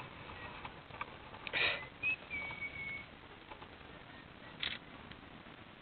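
Faint outdoor background hiss with two short rustling noises. About two seconds in comes one thin whistle-like tone, held for about a second.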